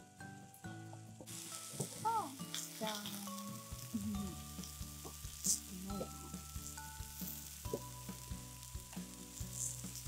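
Meat and vegetables sizzling and crackling on a barbecue grill, under soft background music of held notes.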